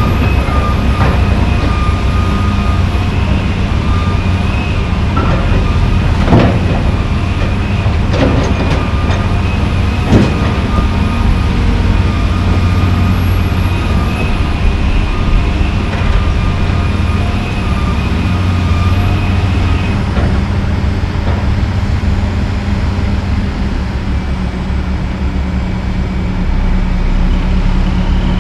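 John Deere 350D LC excavator's diesel engine running under load with a steady whine, while asphalt chunks are dumped from its bucket into a steel dump trailer. They land with sharp bangs, loudest about 6 and 10 seconds in. The whine fades out about 20 seconds in.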